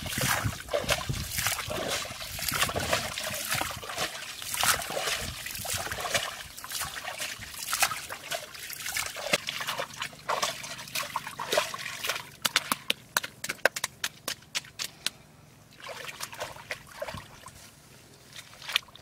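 Wet mud and water sloshing and splattering as handfuls are scooped out of a waterlogged hole and thrown aside, with a quick run of sharp slaps and clicks a little past the middle.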